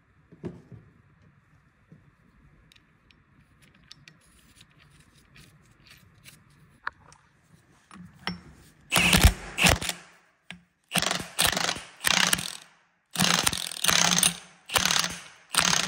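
A ratchet wrench clicking in about seven short bursts, starting about nine seconds in, as it runs a castle nut down onto the crankshaft of an air-brake compressor to hold the drive gear. Before that there are only faint taps of parts being handled.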